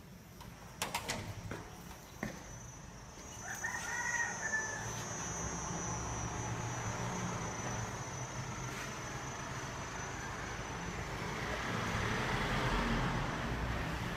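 A rooster crowing once, a few seconds in, after a few sharp clicks; a passing vehicle grows louder near the end.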